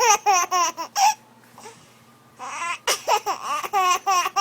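A person laughing in two runs of quick, high-pitched bursts, with a short pause between them about a second in.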